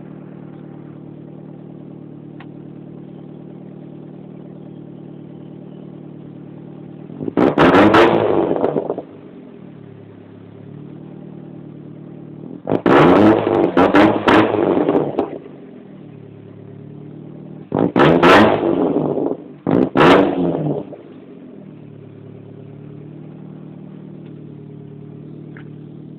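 A vehicle engine idling steadily, revved up three times with short throttle blips about five seconds apart, dropping back to idle after each; the last is a double blip.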